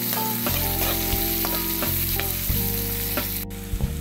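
Sliced onions, garlic, ginger, green chillies and curry leaves sizzling in hot oil in a coated pan as they are sautéed, with the spatula scraping and tapping against the pan several times.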